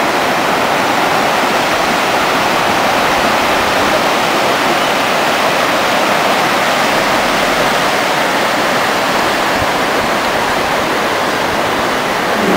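Mountain river rushing steadily over a rocky bed.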